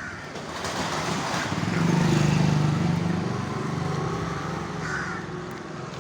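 Motorcycle engine coming up from behind and passing. It is loudest about two seconds in, then fades away.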